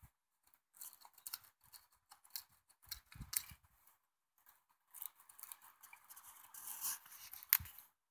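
Morakniv Companion Heavy Duty knife shaving curls off a split stick of wood to make a feather stick: a series of short scraping strokes, then a longer, denser run of scraping from about five seconds in.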